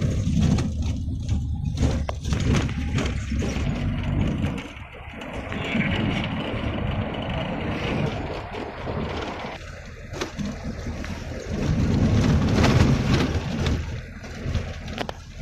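Road noise of a car driving over a broken, potholed road: an uneven rumble that rises and falls, with a few sharp knocks as the wheels hit the holes.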